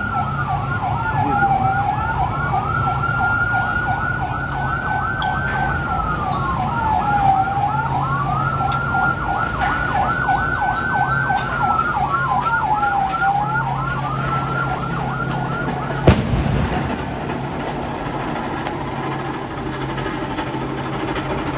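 Emergency vehicle siren sounding a slow rising-and-falling wail with a fast warble on top, over the steady drone of a heavy engine. The siren stops at a sharp bang about sixteen seconds in, leaving the engine and general noise.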